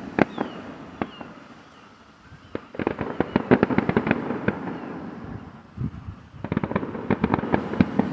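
Fireworks going off in rapid volleys of bangs and crackles. The volleys are densest from about two and a half seconds in and again from about six and a half seconds in, with a short lull before each.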